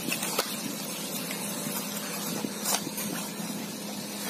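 Cardboard retail box and its paper leaflets being handled, giving a few light clicks and rustles over a steady background hiss. The sharpest click comes a little under three seconds in.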